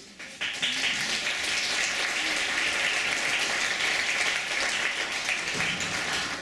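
Audience applauding steadily, the clapping starting suddenly about half a second in.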